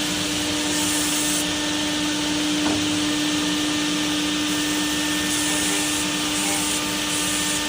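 CNC machining center for aluminium and PVC window profiles running: a steady machine hum with a constant tone over a loud hiss, with a few short bouts of sharper high hiss.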